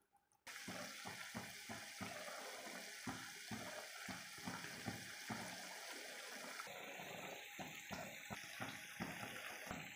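Spice-coated shark pieces and curry leaves sizzling as they fry in oil in a pan: a steady hiss with frequent small crackles, starting abruptly about half a second in.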